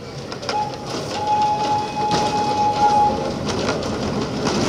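Botchan Ressha's whistle sounding one long steady note of about two seconds as the diesel-powered replica steam train pulls away, over the rumble and clatter of the carriage running on the tram rails.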